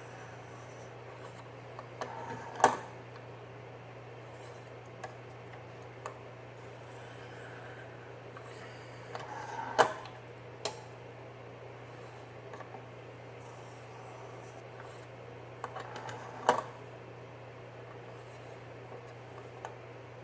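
Clicks and light knocks from a KME guided knife sharpener as its diamond hone is worked along a knife edge, coming in three short bursts several seconds apart over a steady low hum.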